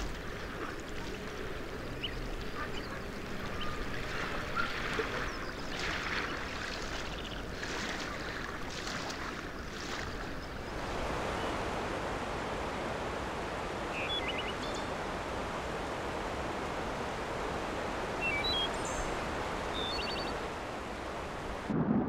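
Waves washing on a shore, then from about halfway a steadier, denser rushing of water, with a few short high bird calls in the second half.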